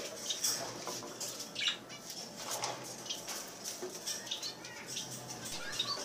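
Small cage birds chirping faintly in scattered short high calls, with brief rustles and clicks among them.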